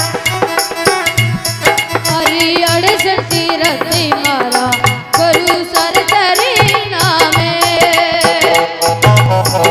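Loud Rajasthani devotional folk music: a hand drum played in a fast, busy rhythm under a wavering, ornamented melodic lead.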